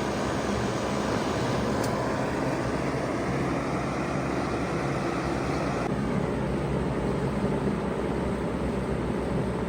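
2006 two-ton Bard wall-hung heat pump running steadily in heat mode: a constant low hum from the compressor under the steady rush of its fans. A faint tick comes about two seconds in, and the upper hiss eases slightly about six seconds in.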